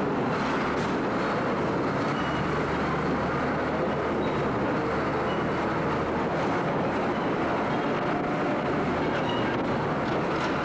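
Tracked lifeboat launch tractor running steadily with the noise of its crawler tracks, towing an Oakley lifeboat on its carriage.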